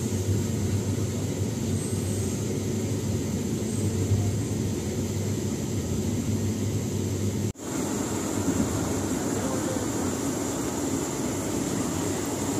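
Steady rumble of the Malabar Express passenger train running along the track. It cuts out for an instant about seven and a half seconds in, then carries on the same.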